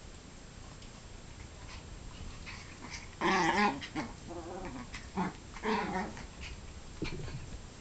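Small dogs playing rough, vocalizing in about four short pitched outbursts from about three seconds in, the first the loudest.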